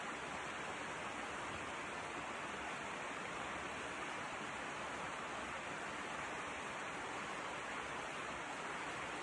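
Steady, even rushing hiss of outdoor background noise, with no separate knocks or other events standing out.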